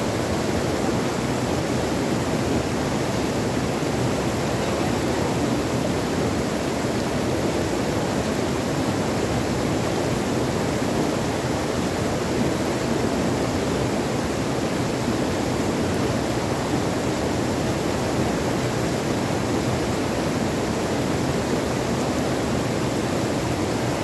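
Small waterfalls of a shallow rocky stream cascading over boulders into a pool, a steady rush of falling water.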